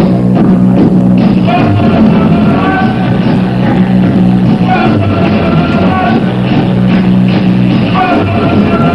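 Loud reggae sound-system music with a heavy, steady bass line.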